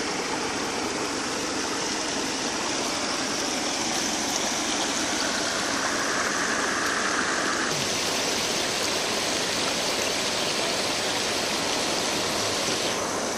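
Steady rush of muddy stream water flowing through and around a bamboo fish fence, changing abruptly about eight seconds in.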